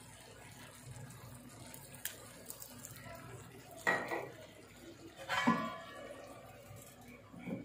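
Hot charcoal in a foil cup, set on a pan of curry, sizzling in two short bursts, about four seconds in and again a second and a half later. This is the coal-smoking (dhungar) step that gives the dish its smoky flavour.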